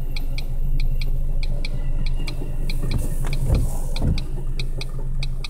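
A car's indicator flasher ticking steadily in tick-tock pairs over the hum of the car, heard from inside the cabin. About three seconds in, the tail of a passing passenger train rumbles and hisses past for about a second.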